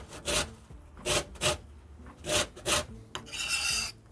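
Orange peel being grated for zest: quick rasping strokes against the grater in pairs, three pairs about a second apart, then a longer scrape near the end.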